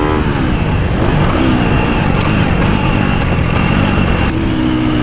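On-board sound of a KTM SX-F four-stroke motocross bike on track. The engine's pitch falls as the throttle closes at the start, then runs rough and uneven under changing throttle, and settles into a steady note near the end.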